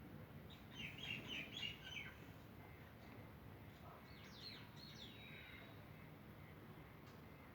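Faint bird chirping over quiet room tone, in two short bouts of quick high chirps: from about half a second to two seconds in, and again from about four to five and a half seconds in.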